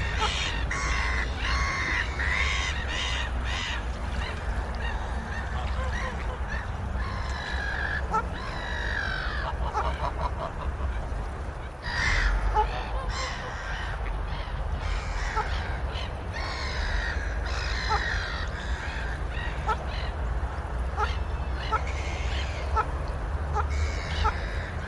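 Waterfowl giving repeated honking calls over a steady low rumble.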